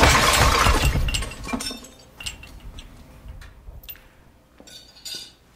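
A loud metallic crash as a car's cracked front suspension control arm snaps and the wheel drops away, followed by scattered clinks and knocks of metal parts settling.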